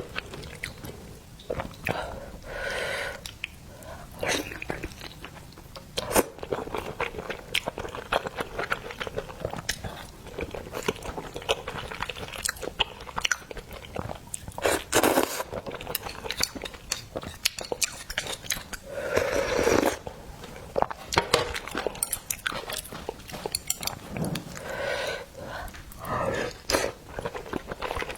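Close-miked eating of oysters: chewing and biting with many sharp wet clicks and smacks, and a couple of longer, noisier mouth sounds, one about halfway through and one about two-thirds of the way through.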